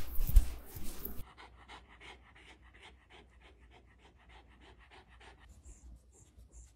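Shiba Inu panting softly and quickly, about seven breaths a second, stopping near the end; a louder burst of rustling noise fills the first second.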